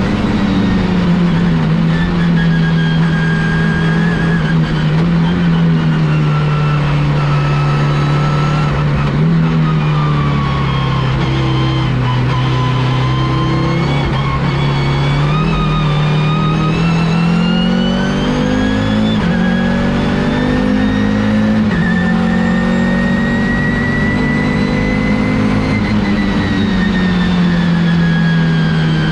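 Audi S2-R Quattro race car's turbocharged five-cylinder engine under racing load. Its revs sag slowly through the first half, climb in steps after the middle and drop back sharply with a gear change. A high whine falls and rises smoothly alongside.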